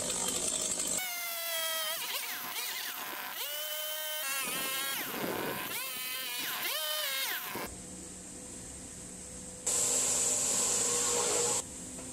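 Chainsaw cutting through a log, its motor rising and falling in pitch several times as it revs and slows under load in the cut. Near the end a louder, steady hiss takes over.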